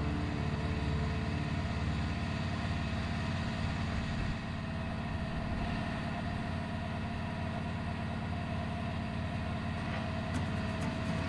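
A steady low machine hum, a motor running without letting up.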